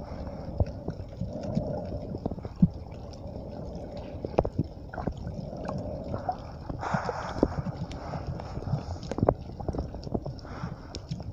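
Water noise picked up by a phone microphone held underwater, with irregular sharp clicks and knocks and a couple of brief swells of hiss.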